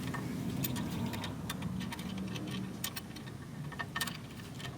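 Ratchet wrench clicking in short, uneven runs while bolts are driven during a strut reinstall, over a steady low hum.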